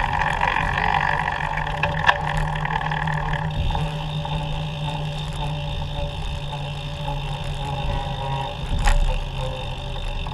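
Steady road and traffic noise heard from a moving recumbent trike in city traffic, with a constant low hum and sharp knocks about two seconds in and near the end.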